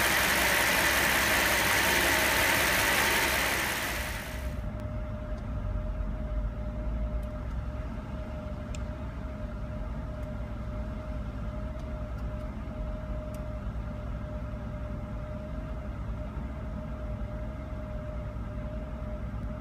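Mercedes-Benz SL600's V12 engine running at a rough idle, a steady low rumble with a thin steady whine above it. A loud hiss covers it for the first four seconds and stops suddenly.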